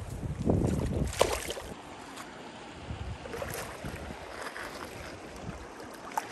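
Shallow stream water, with a hooked kokanee salmon splashing and thrashing at the surface. Wind rumbles on the microphone during the first second and a half.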